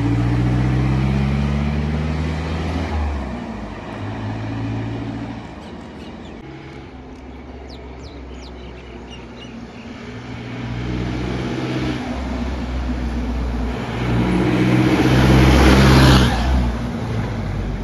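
Mahindra Commander jeep's engine running through a loud modified exhaust while driving. The revs climb early on, ease off, then build again to the loudest point about sixteen seconds in before dropping back.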